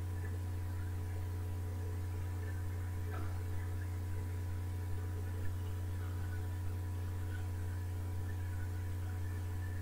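Steady low electrical hum with fainter steady tones above it, broken only by a few faint ticks.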